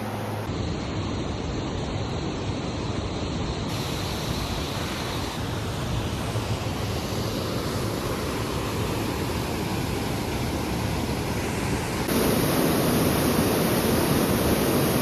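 Waterfall's rushing water, a steady even noise that gets louder about twelve seconds in.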